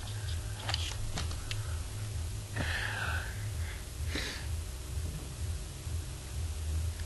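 A steady low electrical hum, with a few light clicks in the first second and a half and a couple of short breaths or exhales around three and four seconds in.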